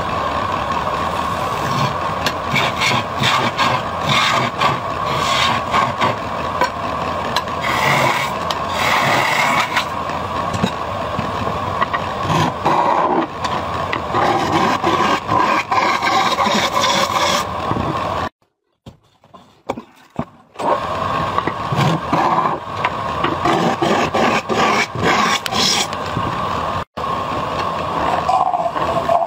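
Wood lathe running with a steady hum while a hand-held turning tool scrapes and cuts a spinning wooden jar blank, shaping its outside and hollowing its mouth. The cutting comes in uneven scrapes. About two-thirds of the way through, the sound cuts out for about two seconds.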